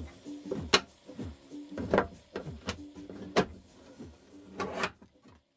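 Background music with held notes and sharp knock-like hits about every second and a half.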